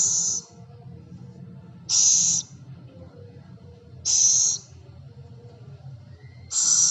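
Scops owl hissing: four short, harsh, high-pitched hisses of about half a second each, evenly spaced about two seconds apart.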